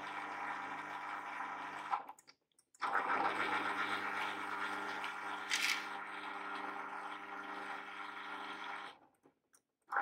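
Garage door opener's electric motor and gear drive running with a steady hum. It cuts out about two seconds in and again near the end, and starts up again after each gap of about a second. A short sharp noise comes about halfway through.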